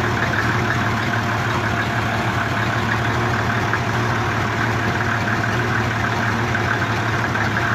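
An FNM truck's diesel engine idling steadily.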